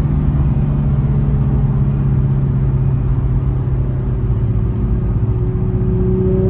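Infiniti G35 coupe's 3.5-litre V6 running at a steady cruise, heard from inside the cabin. Its engine note eases slightly, then starts to rise near the end.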